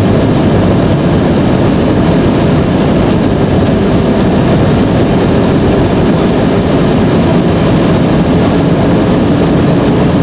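Steady roar of airliner cabin noise inside an Airbus A320: its engines and the rush of air over the fuselage.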